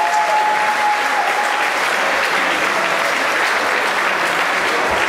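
Audience applauding steadily for the fighters, with a single held note fading out in the first second or two.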